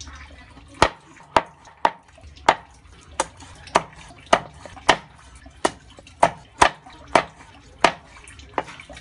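Kitchen knife chopping raw frog on a wooden chopping board. Sharp knocks of the blade hitting the wood come about two a second in a slightly uneven rhythm.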